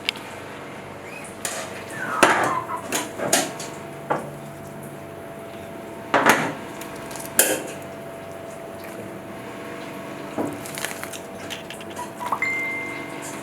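Scattered clattering and knocks of hard utensils and equipment being handled and set down, in clusters about two and six seconds in, over a steady low hum; a brief high tone sounds near the end.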